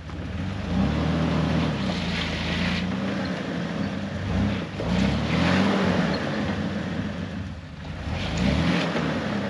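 Off-road Jeep's engine revving in repeated surges, about five times, as it climbs a rock ledge, with bursts of tyre scrabble; the open front differential lets a wheel spin, so it climbs on three wheels.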